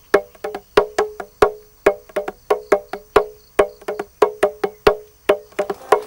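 Title music played on pitched wooden percussion: quick, uneven strokes at about five a second, each ringing briefly on the same few notes.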